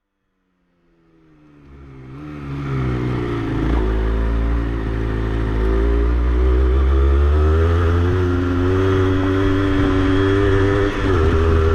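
Honda CRM80's two-stroke single-cylinder engine running as the bike is ridden, fading in over the first couple of seconds, its pitch rising and falling with the throttle and briefly dropping near the end.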